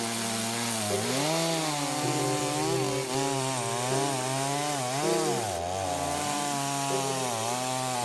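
Chainsaw engine running under load while cutting a tree, its pitch rising and falling again and again as the saw works through the wood.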